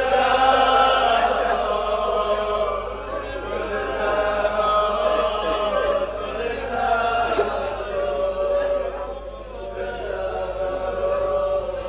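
A group of voices chanting a slow devotional lament refrain together in long, drawn-out phrases.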